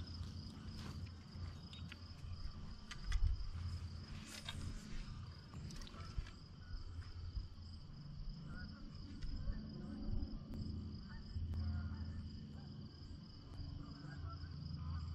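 Steady high-pitched chorus of insects, running evenly throughout, over a low rumble and a few light knocks from the kayak and paddle.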